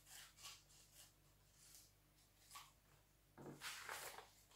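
Scissors cutting newspaper: a few faint snips, then louder rustling of paper near the end.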